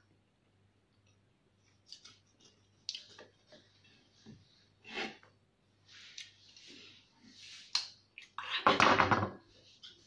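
Kitchen knife sawing through the crust of a freshly baked cake, with short crackly scrapes and taps on the board. About eight and a half seconds in comes a louder scraping rush, about a second long.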